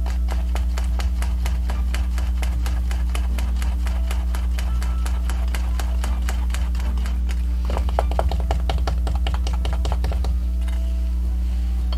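A spatula stirring a sticky molasses-and-egg batter in a small metal bowl, clicking and scraping against the bowl's side about four times a second. The strokes come quicker and louder for a couple of seconds about two-thirds through, then stop shortly before the end, over background music with a steady low drone.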